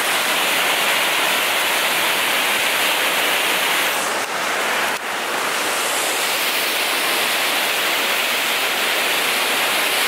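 A multi-tiered waterfall cascading over rock: a loud, steady rush of falling water.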